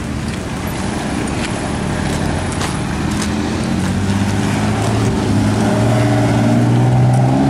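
Car engines running as vehicles drive slowly past close by on a rough dirt road. The engine hum grows louder and rises slightly in pitch over the last few seconds.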